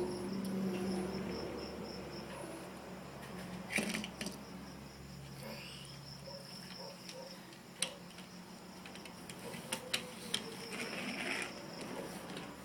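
Insects, likely crickets, chirping steadily in a high pulsing trill, with a low hum under it. A few sharp clicks and knocks come about four seconds in, around eight seconds, and three close together near ten seconds.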